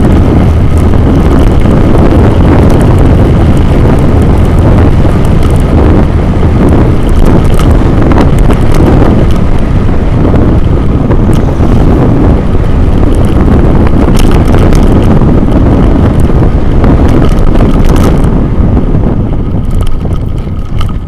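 Heavy wind buffeting on a Xiaomi Yi 2K action camera's microphone while riding along a road, with a vehicle running underneath. It eases slightly near the end.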